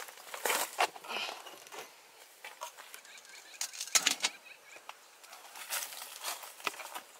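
Irregular rustling and scraping with sharp knocks from a large copper dum-biryani pot being handled. It is carried and set down, then its dough-sealed, ash-covered lid is gripped with cloths and pulled off, breaking the seal on the steamed pot.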